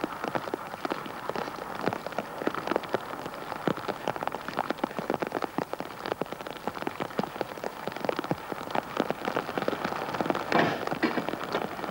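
Rain falling, with many separate drops striking close by in a dense, irregular patter of ticks; it comes down a little heavier about ten seconds in.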